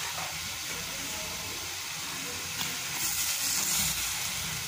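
Curry gravy with potatoes and peas simmering in an aluminium pot on a gas stove: a steady sizzling hiss, with a brief louder rush of hiss about three seconds in.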